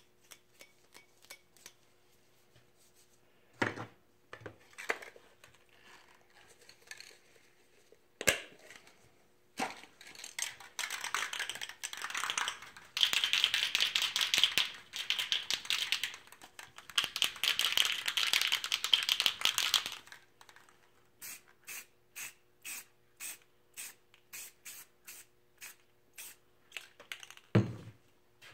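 Aerosol spray paint can spraying in several hissing bursts of a few seconds each, from about ten seconds in to about twenty. A few sharp knocks come before, and after the spraying a run of short, even clicks about two a second, like the can being shaken with its mixing ball rattling.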